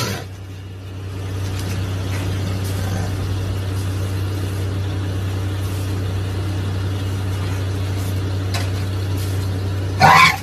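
A steady low mechanical hum, like an idling engine or running machine. Near the end a brief loud shrill sound cuts across it.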